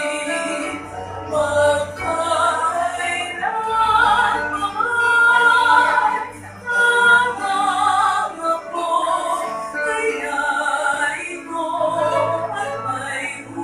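Mixed-voice vocal quartet, two women and two men, singing a Filipino kundiman in parts, with long held notes and a short pause for breath about halfway through.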